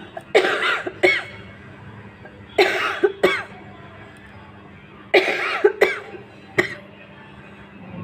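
A woman coughing in three bouts of two or three sharp coughs each, a couple of seconds apart, done on purpose for a cough challenge.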